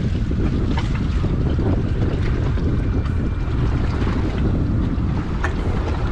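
Wind rumbling steadily on the microphone aboard an offshore fishing boat, with water sloshing and splashing around the hull.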